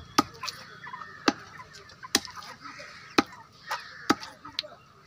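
Heavy cleaver chopping raw chicken on a wooden tree-stump block: about seven sharp thuds at an uneven pace, roughly one a second.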